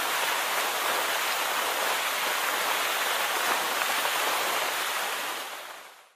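Steady splashing and hiss of a spraying water fountain, fading out near the end.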